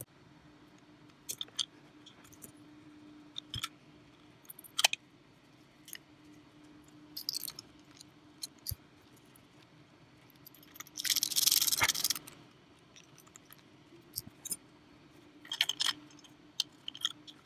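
Small parts of a Sigelei 213 vape box mod being handled and fitted back together: scattered sharp clicks and taps, with a scraping rustle lasting about a second about two-thirds of the way in and a quick run of clicks near the end.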